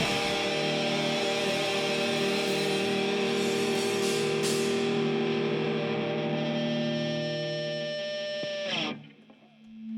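Distorted electric guitar holding one closing chord, left ringing steadily at the end of a live song, then cut off sharply about nine seconds in.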